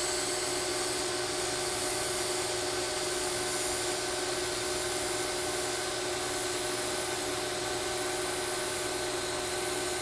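TIG welding arc on a metal pipe bend: a steady hiss and buzz with a constant hum underneath, unchanging throughout.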